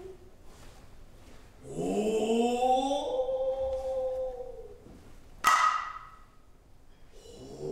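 A Noh drummer's long drawn-out kakegoe call, rising in pitch and then held, followed about five and a half seconds in by a single sharp, ringing stroke on a tsuzumi hand drum.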